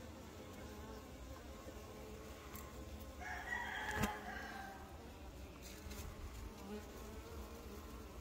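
Honey bees at a hive entrance: the steady hum of many bees buzzing. About three seconds in, a louder pitched call of about a second rises over the hum, with a sharp tap near its end.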